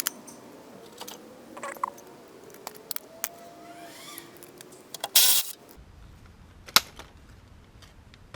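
Scattered metallic clicks, clinks and light rattles of hand tools and hardware during work under a car, with a short harsh rasping burst about five seconds in.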